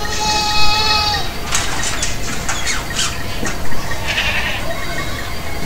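A goat bleats once near the start, a single steady-pitched call of about a second. It is followed by scattered short clicks and rustles.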